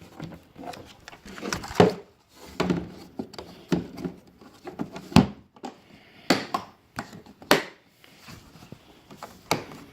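Plastic tool case and metal tools being handled: irregular clicks, knocks and light rattles.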